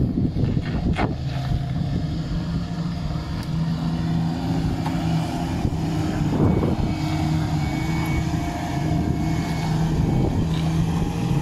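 Jeep Cherokee XJ engine running under load as it crawls up a rock ledge, its revs rising and falling.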